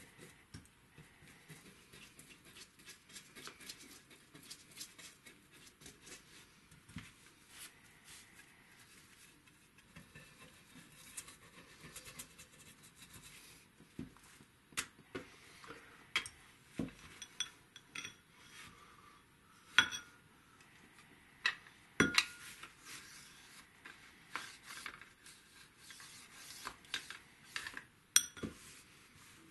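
A small brush clinking and tapping against a ceramic bowl as it is dipped in finishing oil, with faint rustling of newspaper and handling of a wooden gun stock. The clinks are sparse and soft at first and grow sharper and more frequent in the second half.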